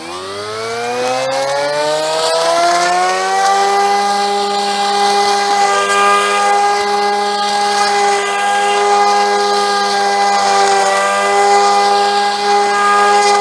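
Cordless battery-powered brush cutter's electric motor spinning up, its whine rising in pitch over the first three seconds, then running steadily at full speed.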